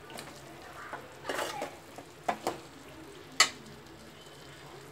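A steel spoon stirring chicken and masala in a hammered metal kadai, scraping the pan, with a few clinks against the metal. The sharpest clink comes about three and a half seconds in. A faint sizzle of the frying mix runs underneath.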